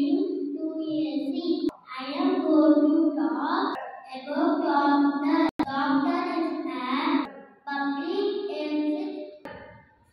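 A young girl singing a song into a microphone, in phrases of held notes with short breaks between them. A brief sharp click about halfway through.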